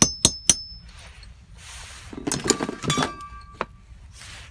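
Three quick hammer blows on a steel pin punch, each with a short metallic ring, driving the rusted, cut-through pin out of an adjustable wrench's knurled thumbwheel. About two seconds later comes a short burst of metal clattering and clinking, then a single click.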